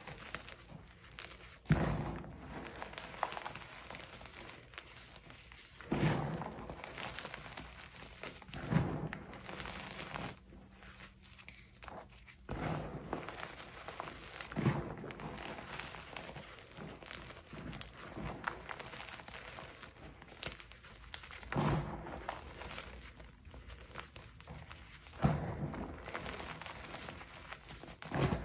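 Hands squeezing and crushing soft gym chalk powder in a bowl: soft crunching and crumbling, with a dull thump every few seconds as the hands press down into the chalk.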